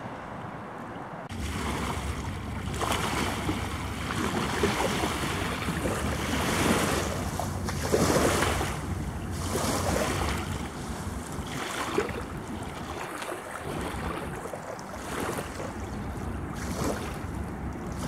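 Small waves lapping and splashing onto a sandy shore, swelling and easing every second or two, with wind buffeting the microphone in a low rumble.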